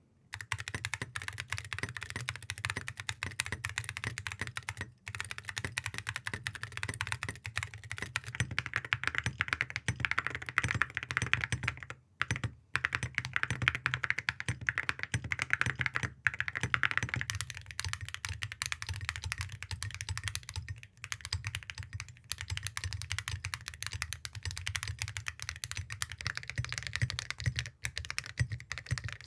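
Fast, continuous typing on mechanical keyboards fitted with Awekeys Copper Eagle full-metal keycaps of copper-plated cupro-nickel, with a few brief pauses. The keystrokes sound extremely deep.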